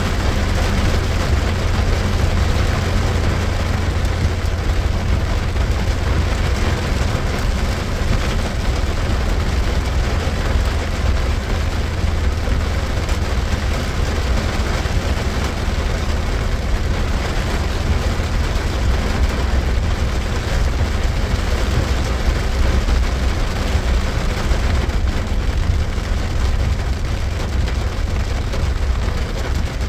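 A 2021 Ford Ranger XLT pickup driving slowly in 4x4 over a muddy road, heard from inside the cab: a steady low rumble of engine and tyres with a hiss of rain.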